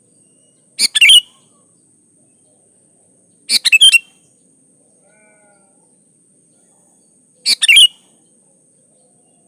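Sooty-headed bulbul (kutilang) singing three short, loud phrases of quick notes, each under half a second, about three seconds apart.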